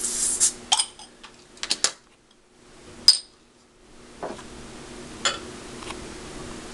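Crown cap prised off a bottle-conditioned homebrew red ale with a bottle opener: a short hiss of escaping carbonation, showing the beer has carbed up. Small clicks follow as the cap and opener are set down, a sharp metallic clink about three seconds in, then beer starts pouring into a tilted pint glass.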